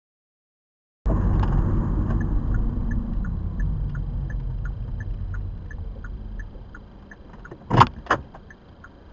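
Inside a Toyota Prius: after a second of silence, road and car noise cuts in and slowly dies away as the car slows, with a turn signal ticking steadily. Two sharp clicks come near the end.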